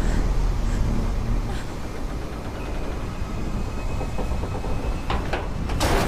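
Steady roar and rumble of a large waterfall, with a few sharp knocks near the end.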